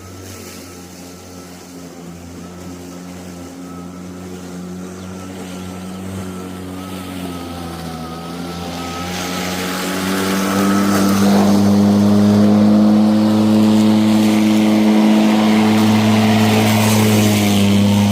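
Einhell GP-CM 36/52 battery-powered lawn mower running with a steady hum, growing steadily louder. From about ten seconds in, a broad hiss joins the hum and the sound stays loud.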